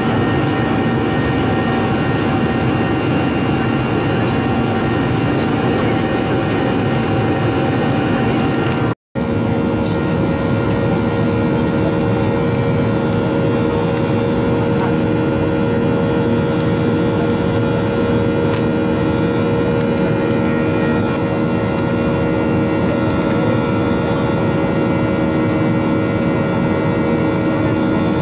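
Jet airliner cabin noise during the climb after takeoff: a steady engine and airflow roar with a few steady humming tones. The sound cuts out for an instant about nine seconds in.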